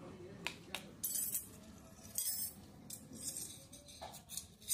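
Small steel toy spoons and utensils clinking and scraping against a little steel bowl: a string of separate metallic clinks and scrapes, roughly one a second.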